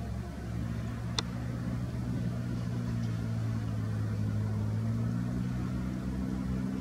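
Steady low hum of an idling vehicle engine, with a single sharp click about a second in.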